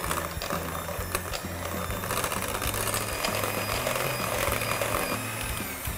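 Electric hand mixer running steadily, its twin beaters whipping softened butter in a glass bowl.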